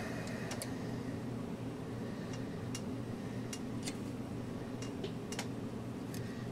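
Irregular light clicks and ticks of a resistor's wire leads being bent and wrapped around the metal turrets of a guitar-amplifier turret board, over a steady low hum.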